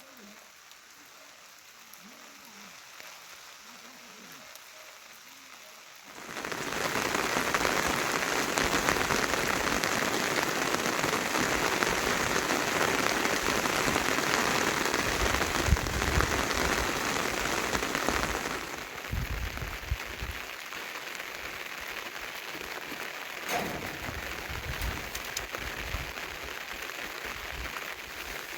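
Rain falling steadily, light at first, then suddenly much heavier and louder about six seconds in. About twelve seconds later it drops back to a moderate patter.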